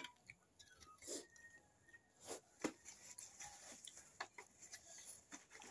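Faint handling sounds: a paper tissue rustling and light clicks and taps as a small cup is handled, scattered and quiet.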